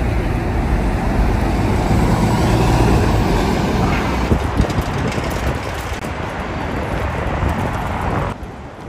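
City bus moving through street traffic close by, its engine and tyre noise over the general traffic sound. The sound drops suddenly about eight seconds in.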